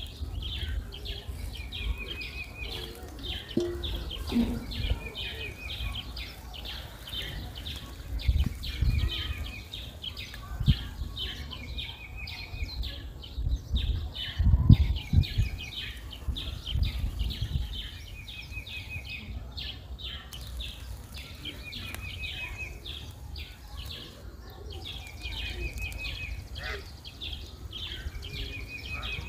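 Birds calling: a short trilled phrase repeats about every two to three seconds over steady high chirping, above a low rumble with a few dull bumps in the middle.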